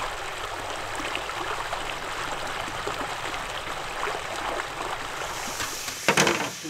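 Steady rushing of flowing water, with a short, loud burst of noise about six seconds in.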